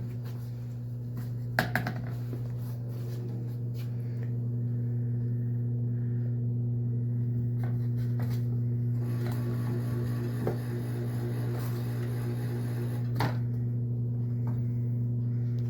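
A steady low electrical hum, as from a running household appliance, with a few faint clicks and taps.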